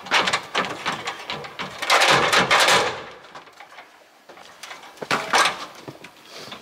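Aluminium ladder clattering and scraping as it is leaned against a wall and climbed. There are a few knocks at the start, a longer rattling scrape about two seconds in, and more knocks about five seconds in.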